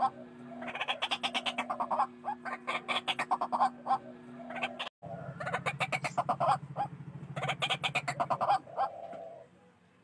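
White-breasted waterhens calling: fast runs of harsh, repeated croaking notes, the loud chorus used as a trapping lure. The calls break off for an instant about five seconds in, and a low buzz runs under them for a few seconds after.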